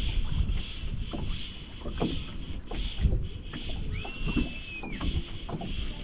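Wind buffeting the microphone over lapping water, with soft low knocks. About four seconds in comes a single high, whistle-like tone held for about a second.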